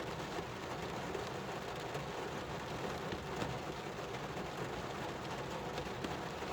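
Steady rain falling, an even hiss with scattered drops heard as faint ticks.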